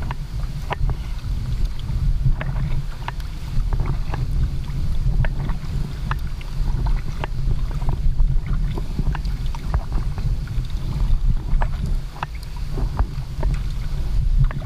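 Kayak paddle strokes in the sea: water splashing and dripping off the blades in frequent small, sharp splashes, over a constant low rumble of wind on the microphone.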